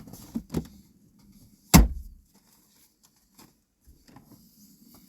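Clicks and clunks of a car's interior being searched: two sharp clicks near the start, one loud thump a little under two seconds in, then a few faint clicks.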